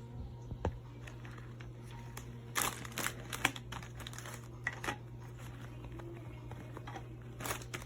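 Packaging crinkling and rustling in short, irregular bursts as it is handled, with a few sharper clicks, over a steady low hum.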